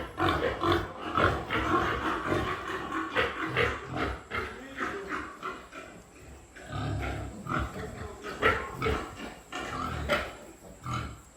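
Pigs grunting, a rapid string of short calls that thins out about five seconds in, followed by a few deeper, heavier grunts.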